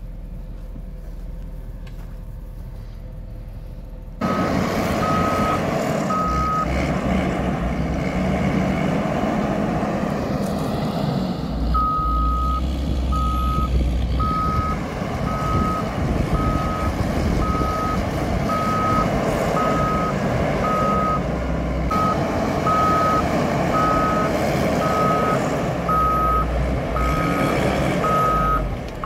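Caterpillar 140M motor grader's diesel engine running under load, with its reversing alarm beeping at a steady pace, about one beep every three quarters of a second, as it backs up. A low hum for the first few seconds gives way suddenly to the loud engine; the alarm beeps briefly, drops out for a few seconds, then beeps steadily on.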